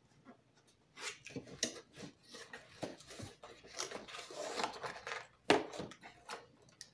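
Small cardboard box of solar LED string lights being opened and its contents handled: rustling, scraping and light clicks, with a sharper knock about five and a half seconds in.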